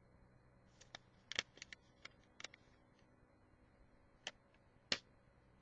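A handmade paper wallet being handled and opened: scattered light paper rustles and clicks, a cluster of them about a second in, and a sharper snap of paper near the end.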